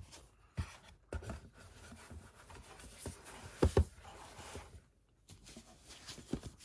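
A Blu-ray box set and its disc cases being handled: rubbing of cardboard and plastic with scattered light knocks, and two louder knocks close together a little past the middle.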